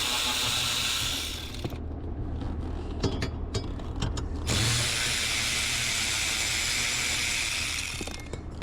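A handheld power tool spins fasteners off in two runs. The first stops about a second and a half in, and the second starts about four and a half seconds in. Between them come a few scattered clicks and taps of parts being handled.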